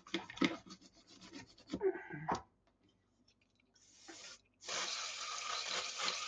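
Scratchy brushing and rubbing on a pistol frame, then two hisses of aerosol brake cleaner being sprayed: a short one about four seconds in and a steady one of about two seconds near the end.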